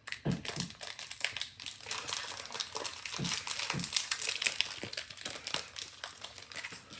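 Plastic and foil trading-card packaging crinkling and rustling as Pokémon cards are handled, a steady run of fine crackles.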